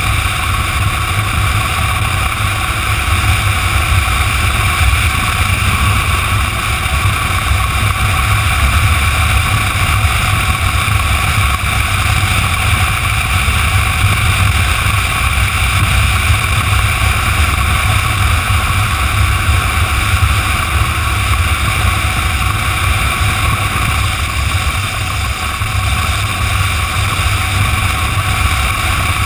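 Motorcycle cruising steadily on the open road: steady engine drone mixed with wind rushing over the bike-mounted camera's microphone, with a deep rumble throughout.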